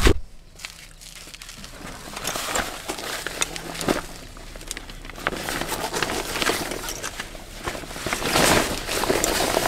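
Fabric chest waders rustling and crinkling as they are unfolded, shaken out and stepped into, with a few small knocks in between.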